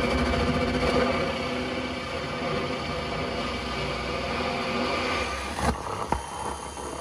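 Cordless DeWalt drill running a bi-metal hole saw up through a travel trailer's wooden floor, a steady whirring grind as it cuts. A couple of sharp knocks come near the end as the saw breaks through.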